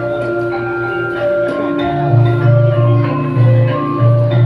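Instrumental background music: held melody notes over a steady, pulsing bass.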